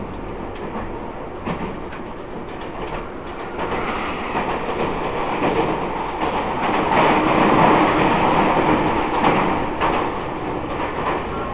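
Running sound of a Taiwan Railways EMU800 electric multiple unit, heard from inside a motor car: steady wheel-and-rail noise with traction motor hum and faint rail-joint clicks. It grows louder from about four seconds in as the train enters a tunnel.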